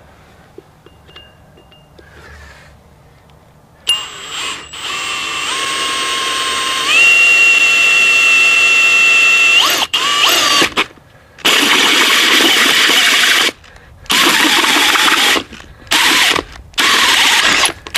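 Cordless drill driving a 1.5-inch hole saw through a cast iron well cap. After a few quiet seconds the motor whines up in speed in steps and runs steadily, cutting, for about six seconds. It then cuts in several short bursts with pauses between them near the end.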